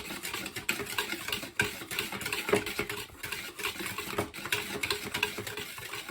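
A utensil stirring dry pancake ingredients (flour, sugar, baking powder, salt) in a mixing bowl: a fast, uneven run of scrapes and clicks against the bowl.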